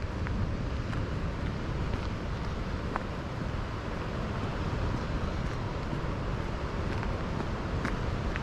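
Steady wind rumbling over the microphone outdoors, with a few faint ticks.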